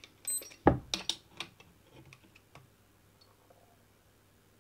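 A brief high beep and button click from a digital trigger pull gauge, then a sharp click, the loudest sound, under a second in as the Glock 17's trigger breaks under the gauge's pull. A few lighter clicks follow as the pistol and gauge are handled.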